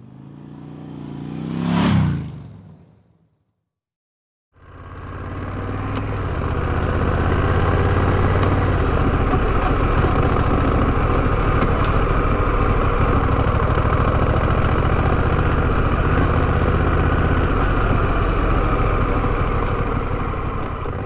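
A vehicle passes close by, rising to a peak and falling in pitch. After a short cut to silence comes the steady sound of riding a motorcycle: the Honda Rebel 1100's parallel-twin engine running at an even speed under wind noise, fading out near the end.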